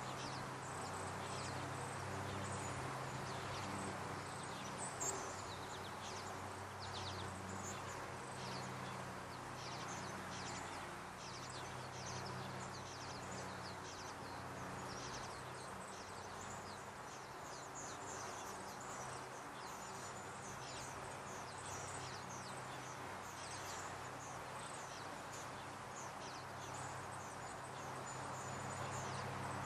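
Small birds chirping: many short, high chirps, several a second, with a few brief thin whistles, over a steady low hum.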